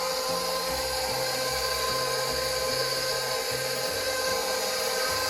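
Electric kitchen mixer running steadily with a high motor whine as it mixes batter.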